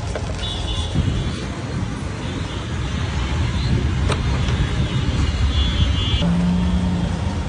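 Road traffic noise: a steady low rumble of passing vehicles, with short high-pitched tones near the start and again in the second half, and a brief low hum near the end.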